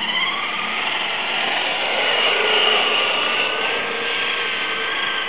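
Traxxas Stampede RC truck's electric motor and drivetrain whining as it drives on asphalt. The whine is steady and its pitch shifts a little as the truck changes speed.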